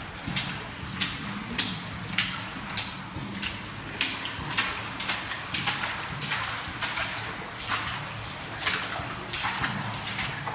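Footsteps walking at a steady pace on a wet concrete tunnel floor, about one and a half steps a second.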